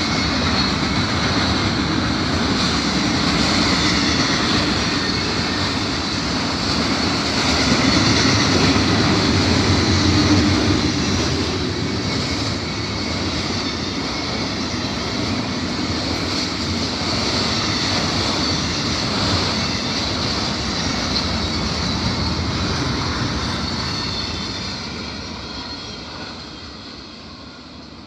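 Double-stack freight train's cars rolling past, a steady noise of wheels on rail that fades away near the end.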